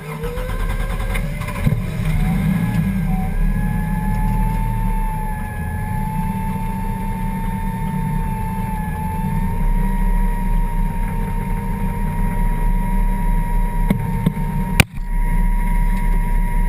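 Toyota 1JZ straight-six engine of a Ford Escort hillclimb car idling, heard from inside the cabin, with a steady low rumble. A whine rises in pitch over the first few seconds, then holds steady. A sharp click with a momentary dropout comes about 15 seconds in.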